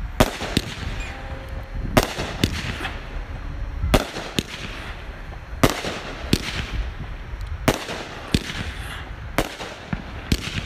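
Aerial fireworks going off in quick succession: about ten sharp bangs, spaced half a second to two seconds apart, as shells burst in the air.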